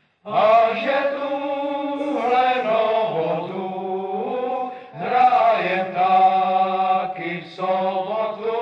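Several voices singing together in long held notes, with brief breaks about five seconds in and near the end.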